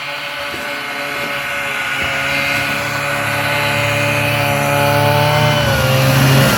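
Buran snowmobile's two-stroke engine approaching, growing steadily louder, then its pitch begins to drop as it passes close, near the end.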